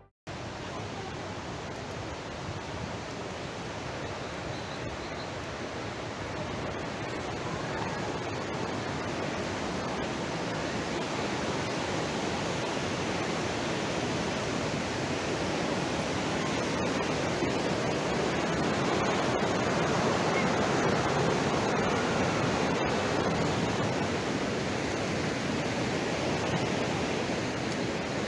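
Steady rushing water of the Upper Düden waterfall, an even rush that grows a little louder over the first twenty seconds or so.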